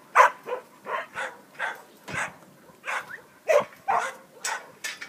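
Kelpie barking repeatedly at sheep penned in the yards, about a dozen short, sharp barks at roughly two or three a second.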